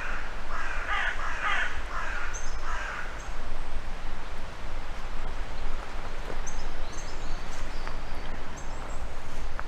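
A crow cawing, a quick run of about six harsh caws over the first three seconds, with small birds giving thin high chirps here and there afterwards.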